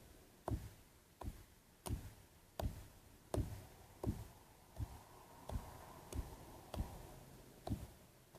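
A series of evenly spaced knocks, about three every two seconds, each a sharp click with a dull thump.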